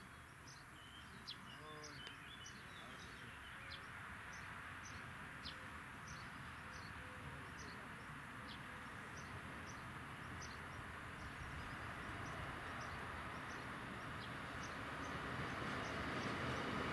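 Arriva class 845 diesel multiple unit (ex-DB class 628) approaching, its engine and running noise building steadily louder as it nears. Small birds chirp throughout.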